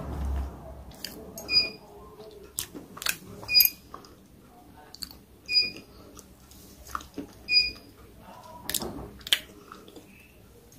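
Close-miked mouth and throat sounds of someone swallowing food: soft wet clicks and small gulps. A short high blip recurs about every two seconds.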